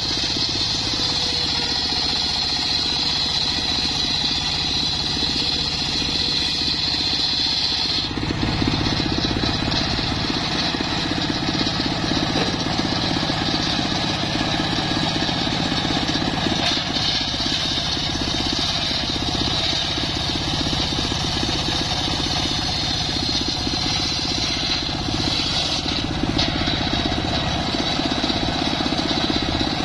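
Homemade circular saw bench running loud and steady, its large blade ripping a mahogany beam lengthwise with a high whine over a motor drone. The sound changes sharply about eight seconds in, the whine dropping and the low drone growing, as the blade's load changes.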